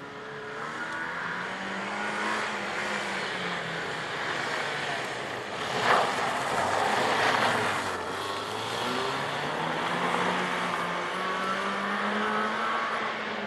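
A BMW E30 rally car's engine revving hard as it accelerates and brakes through a tight cone-marked stage, its pitch climbing, dropping, then climbing again. A short sharp burst of noise about six seconds in, as the car slides through a turn.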